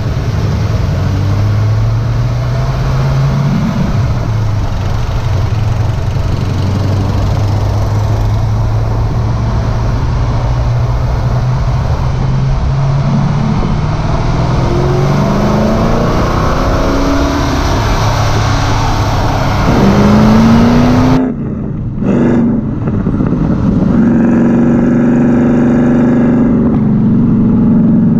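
Ford AU XR8's 5.0-litre V8 driving through an aftermarket exhaust: Pacemaker headers, 100-cell cats, twin 2.5-inch pipes into a single 3-inch system. The engine runs at a steady low cruise, then revs climb from about halfway. About three-quarters through the sound drops away sharply for a moment, then holds steady at a higher pitch.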